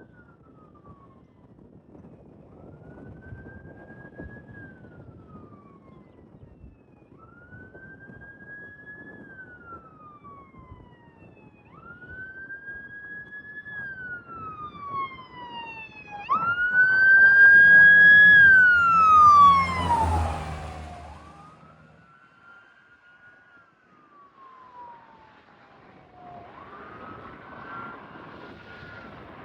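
Ambulance siren on a wail, each cycle rising quickly, holding and gliding down about every four seconds. It grows louder as the ambulance approaches, is loudest about seventeen to twenty seconds in with a low rumble underneath as it passes, then fades as it drives away.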